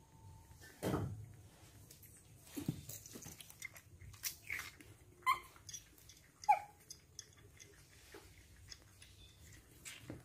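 Baby monkeys drinking from milk bottles: a few short, quiet squeaks spread apart, some falling in pitch, the loudest about six and a half seconds in, among soft knocks and rustles.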